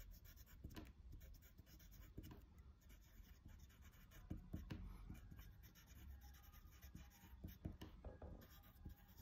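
Pencil writing on drawing paper: faint, irregular scratching strokes as letters are written.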